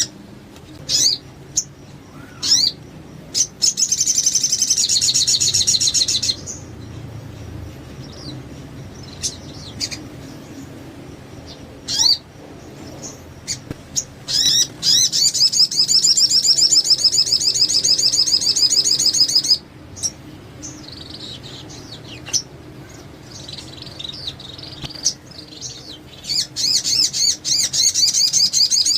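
Crimson sunbird (sogon) singing: short high chirps between long, rapid, high-pitched trilled phrases, three of them, the longest lasting about five seconds.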